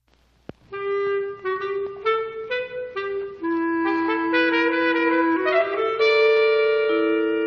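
Music: after a moment of silence and a click, a melody of held wind-instrument notes steps along, and more notes build into a sustained chord in the second half.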